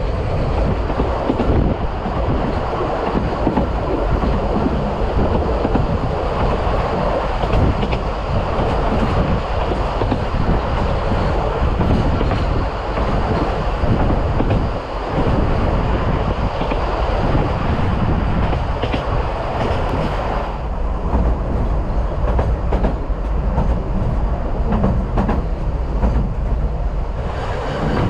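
Vale of Rheidol Railway narrow-gauge steam train running, heard from an open-sided carriage: a continuous rolling rumble and rattle of the carriages on the line. The sound turns duller about two-thirds of the way through and brightens again near the end.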